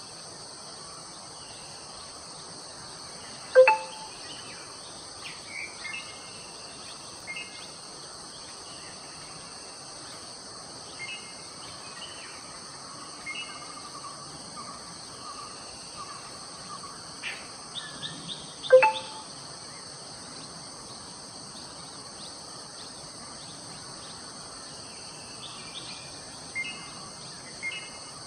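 Forest ambience: a steady high-pitched insect drone with scattered bird chirps, and two loud, sharp, short calls about fifteen seconds apart.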